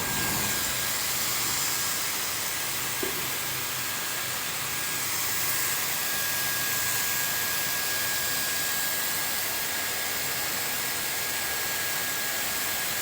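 High-speed hair dryer running at a steady speed: a strong rush of air with a steady whine from its motor.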